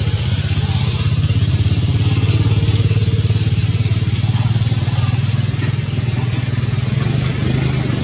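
A motor vehicle's engine running steadily, a low pulsing hum that dominates the sound, its pitch lifting slightly near the end.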